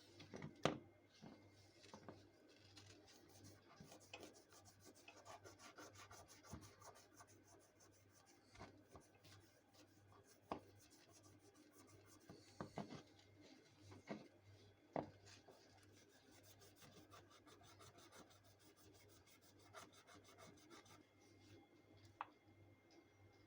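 Faint rubbing and scrubbing, with scattered light clicks and knocks of small parts being handled. A low steady hum sits underneath.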